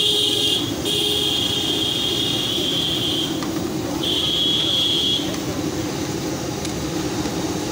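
Fish deep-frying in a large karahi of hot oil, a steady sizzle over a low continuous rumble. A high, steady tone sounds three times, the middle one the longest at about two seconds.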